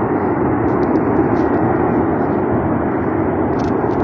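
Gas burning off from a ruptured main gas pipeline after a leak, giving a loud, steady rushing noise with no breaks.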